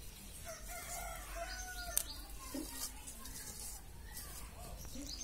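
A rooster crowing once in the background, one drawn-out call of about a second and a half, followed by a sharp click about two seconds in.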